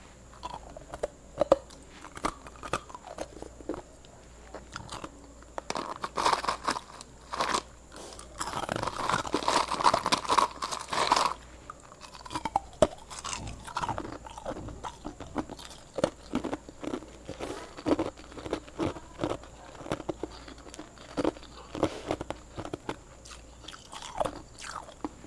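Hard ice being bitten and chewed close to the microphone: irregular sharp crunches and cracks, with a denser stretch of continuous crunching about a third of the way in.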